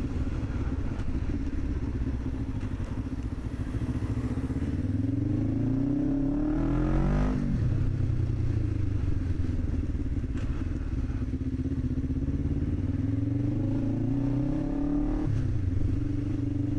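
Small commuter motorcycle's engine accelerating under load, its revs climbing steadily through a gear. The revs drop sharply at a gear change about seven seconds in, then climb again and drop at another upshift near the end.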